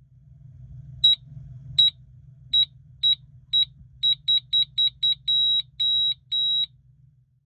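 Alti-2 Mercury Crimson skydiving audible altimeter sounding its third canopy alarm: high-pitched beeps, five spaced out, then five in quick succession, ending in three longer tones. This alarm marks the last preset altitude under canopy.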